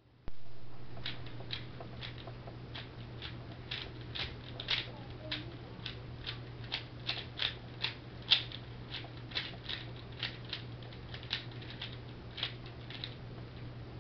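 A Dayan GuHong 3x3 speed cube being turned fast by hand during a timed solve: a quick run of plastic clicks and clacks, about two or three a second, that stops near the end. A steady low hum runs underneath.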